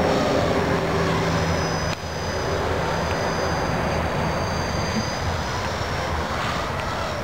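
E-sky CP3 RC collective-pitch helicopter in flight, its high-speed brushless main motor whining and rotor blades buzzing. The whine wavers up and down in pitch, with a brief drop in level about two seconds in.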